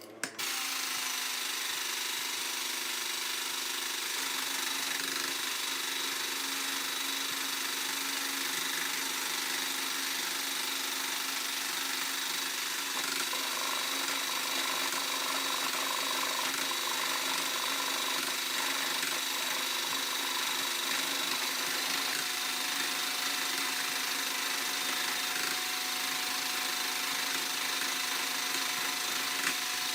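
Electric drill driving a homemade table saw, its motor running steadily at constant speed.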